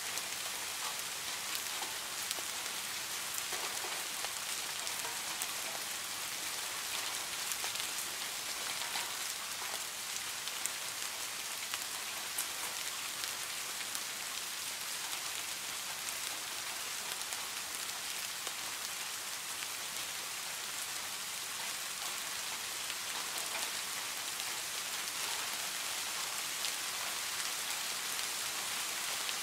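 Steady rain falling: an even, mostly high hiss dotted with the ticks of single drops.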